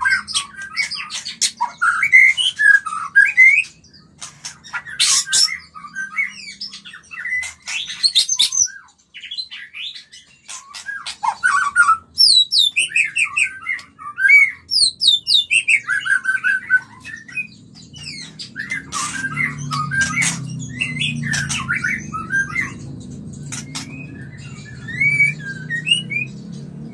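White-rumped shama singing a fast, varied song of whistled phrases and glides mixed with sharp clicks and harsh notes, the excited song of a shama in breeding condition. A low steady hum comes in about two-thirds of the way through.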